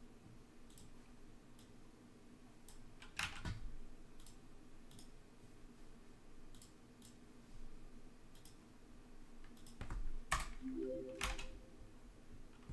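Faint computer keyboard typing and mouse clicks, scattered, with a few louder clicks about three seconds in and around ten seconds in. Just before eleven seconds a short rising chime of a few stepped notes sounds: a stream alert for a new subscriber.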